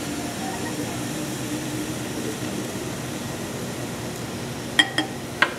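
Steady background hum, then three quick ringing clinks of glassware near the end as the flask of baking soda and hydrochloric acid is handled.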